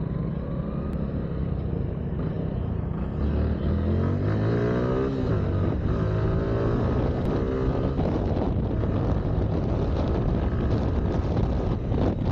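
Motorcycle engine heard from the rider's seat, accelerating from low speed: the revs climb twice, with a gear change between them, about four to seven seconds in. It then runs steadily at cruising speed under wind noise on the microphone.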